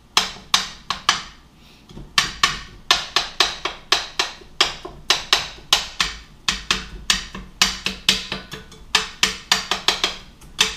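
Spatula chopping down on ground beef browning in a frying pan: a run of sharp taps against the pan, about three a second, with a short pause near the start, as the clumped meat is broken into small pieces.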